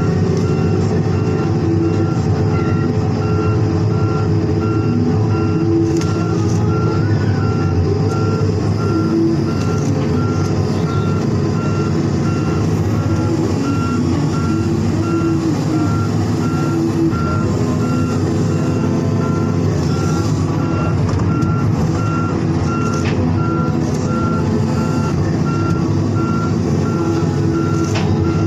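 Crawler excavator travelling on its tracks: the diesel engine runs steadily under the rapid, even beeping of its travel alarm, with an occasional knock.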